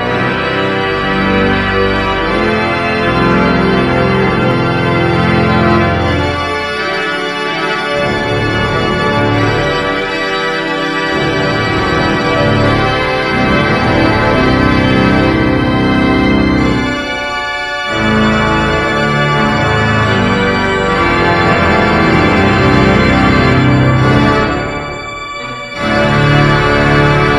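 Church organ playing sustained chords, with a short lull near the end before the next phrase.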